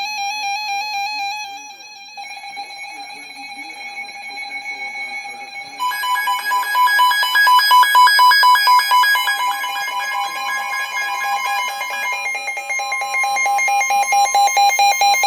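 Several electronic emergency alert tones sounding over one another, warbling. New tones come in at about 2, 6 and 12 seconds. From about 6 seconds a rapid pulsing tone joins, and the mix gets loudest.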